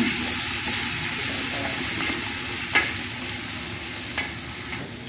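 Sliced onions sizzling in hot oil in a metal pot as a ladle stirs them. The ladle knocks sharply against the pot a couple of times, and the sizzle eases off a little toward the end.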